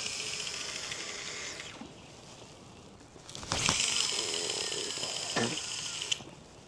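Two bursts of high-pitched mechanical whirring: a short one, then a longer one a second and a half later.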